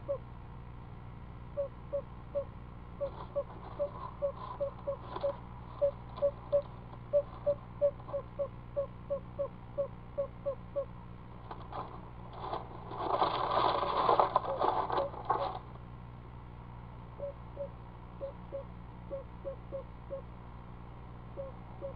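Female screech owl giving her soft "chug chug chug" call, a train of short low notes at about three a second: a call for a mate to join her at the nest. About halfway through, the calling stops for a few seconds of scraping and rustling as she shuffles on the nest box floor, then it starts again.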